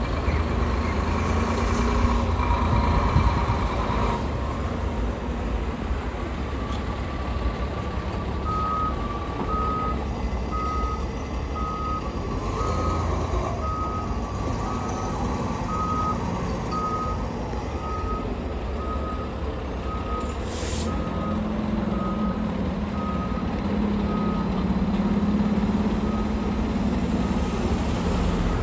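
Fire engine's diesel engine running as the truck backs up, with its reversing alarm beeping steadily at about three beeps every two seconds from roughly eight seconds in. A short, sharp hiss comes about twenty seconds in.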